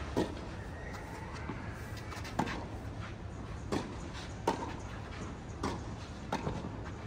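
Tennis rally: a ball struck by rackets and bouncing on the court, about six sharp knocks at uneven intervals of one to two seconds.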